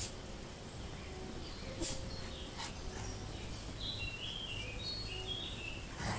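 A small bird chirping a quick run of short high notes from about four to five and a half seconds in, over steady outdoor background noise. A couple of short sharp sounds come about two seconds in.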